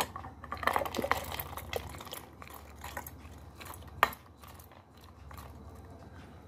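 Mixed grains and legumes tipped into a stainless-steel mixer-grinder jar, clattering onto the steel base and blade. A dense run of clicks and clatters comes in the first two seconds. A single sharp knock, the loudest sound, follows about four seconds in.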